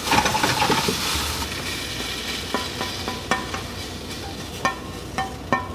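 Chicken pieces sizzling in a hot frying pan as a spatula stirs and scrapes them. The sizzle is strongest at first and fades, and a few sharp taps of the spatula on the pan come in the second half as the chicken is scraped out of the tipped pan into a pot.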